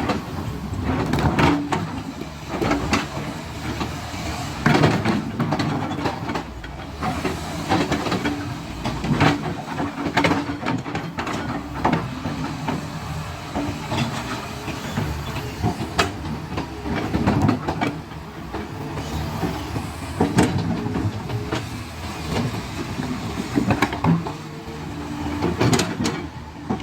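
Excavator at work: its diesel engine runs steadily, with irregular metal clanks and knocks every second or two.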